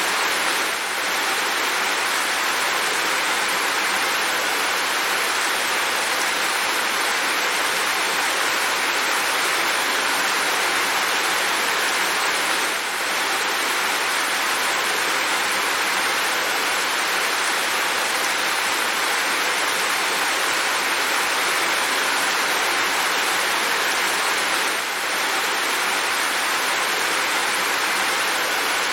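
Steady heavy rain falling, an even hiss, with a brief slight dip in loudness about every twelve seconds.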